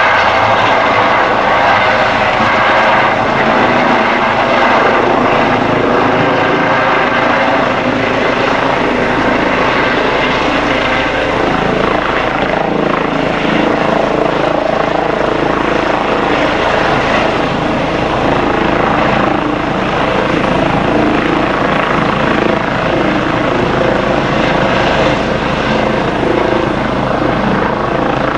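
Eurocopter EC135 twin-turbine helicopter hovering low and setting down. Its main rotor and Fenestron tail rotor run steadily and loud, with steady high tones over the rotor noise.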